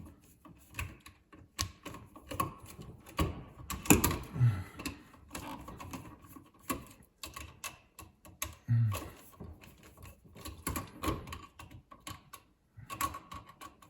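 Irregular clicks, taps and scrapes of a screwdriver and metal parts as a wall outlet is unscrewed and taken apart.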